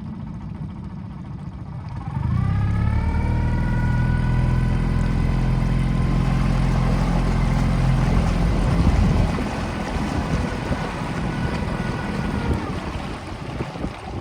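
Boat engine throttling up about two seconds in with a rising whine, then running steadily at trolling speed before easing off near the end.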